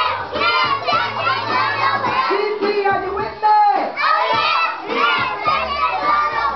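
A group of young children singing and shouting together loudly, many high voices at once.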